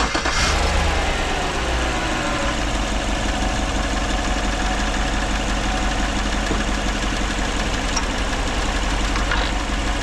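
2014 GMC truck's 5.3-litre V8 idling with a misfire on the number one cylinder, caused by a failed ignition coil giving no spark. The engine speed eases down over the first couple of seconds, then holds a steady idle.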